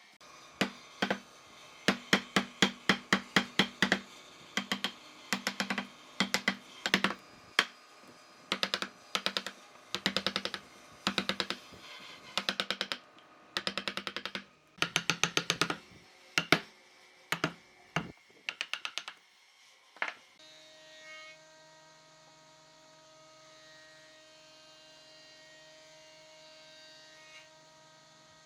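Repeated sharp strikes on wood in quick bursts of several blows, typical of hammering or mallet work, lasting about nineteen seconds. It then gives way to a steady hum of several held tones.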